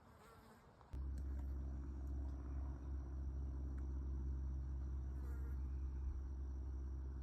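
A steady low buzz at an unchanging pitch cuts in suddenly about a second in and holds evenly.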